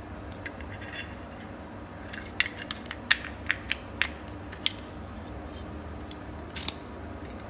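A Zippo lighter's metal case handled, giving a string of about eight short, sharp metallic clicks and clinks, scattered over a few seconds, over a steady low hum.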